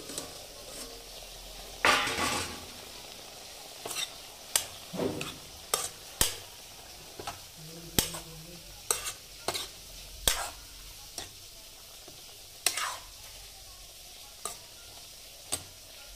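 Food sizzling in a pan with a steady hiss, while a utensil stirs it, knocking and scraping against the pan at irregular moments, with a few longer scrapes.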